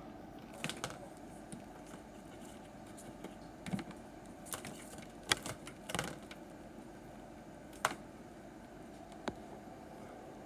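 Scattered light clicks and rattles, about a dozen spread irregularly over several seconds, from test probes, leads and small parts being handled on a workbench, over a faint steady hum.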